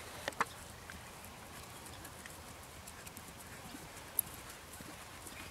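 Soft hoofbeats of a ridden Quarter Horse/Paint cross gelding moving over grass. A few sharp clicks stand out, two near the start and one about four seconds in.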